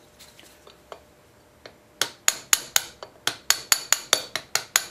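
A ball-peen hammer tapping steel at the flywheel of a 1934 Briggs & Stratton Model Y engine, working the flywheel loose for removal. After a few faint handling clicks, rapid bright metallic taps start about two seconds in, about four to five a second.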